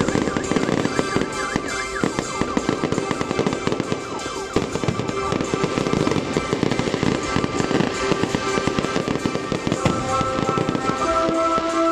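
Aerial fireworks bursting overhead in a dense, unbroken run of rapid crackling pops, with music playing underneath.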